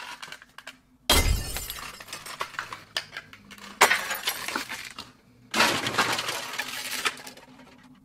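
Small cardboard toy box ripped open by hand and the plastic bag inside crinkled, coming as three crackling bursts, the first starting about a second in.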